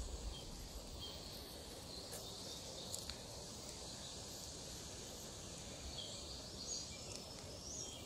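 Faint outdoor ambience: a steady high hiss with a few short bird chirps in the second half.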